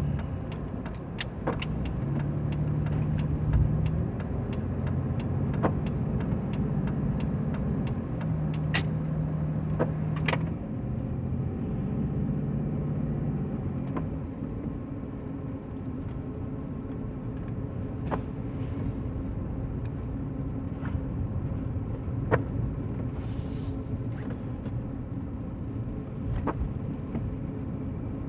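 A car running, its engine and road noise a steady low hum. Over it comes a fast, even ticking, about three ticks a second, that stops about a third of the way in, followed by a few scattered sharp ticks.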